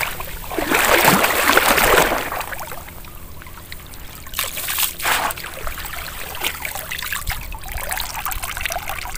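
Pond water and mud sloshing and trickling as a long-handled mesh scoop net is dragged through a shallow muddy pond and drains, with a loud splashing surge about a second in and a couple of shorter splashes later.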